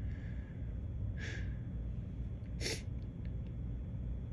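A man's two short, sharp breaths, about a second and a half apart, as he works up to a sneeze that won't come: a stuck sneeze, a false start.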